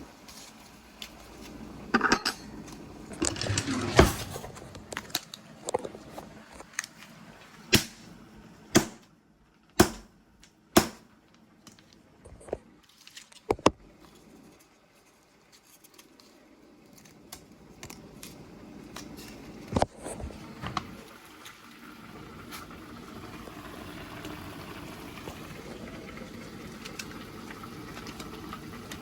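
Sharp clicks, knocks and rattles of kitchen handling, pots and packets, through the first half. From about two-thirds of the way in, a lidded pot boiling on the stove gives a steady bubbling hiss.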